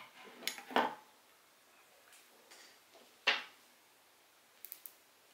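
Small hard parts being handled during spinning-reel repair work. A cluster of clicks and knocks comes early, a single sharp knock follows about three seconds in, and a few faint high ticks come near the end.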